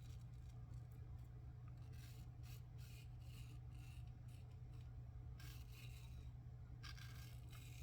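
Kampfe Bros. Star safety razor scraping through lathered stubble in short strokes, in three clusters, over a steady low hum.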